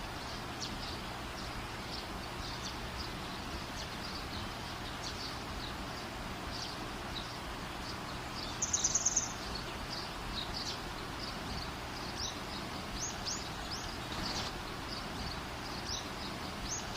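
Small birds chirping over a steady background hiss, with a loud rapid trill of about six quick high notes about nine seconds in.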